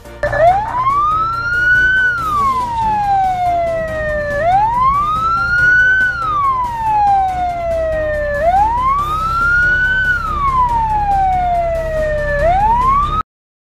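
Emergency vehicle siren wailing in slow, even cycles: each sweep rises over about a second and a half and falls over two to three seconds, roughly one cycle every four seconds, over a low rumble. It cuts off abruptly near the end.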